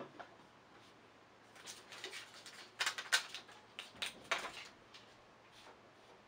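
Light taps of a blunted wooden toothpick dabbing dots of craft paint onto a small stretched canvas, in a few short clusters, the loudest about three seconds in.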